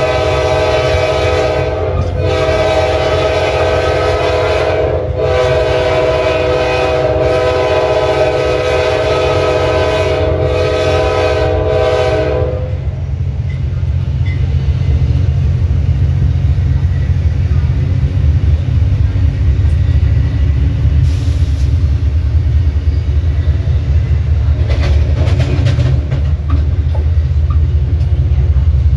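Nathan K5LA five-chime air horn on a GE Dash 8-32BWH locomotive, sounded in several long blasts with brief breaks and cut off about twelve seconds in. After that, only the low steady rumble of the locomotive and train running, which grows a little louder near the end.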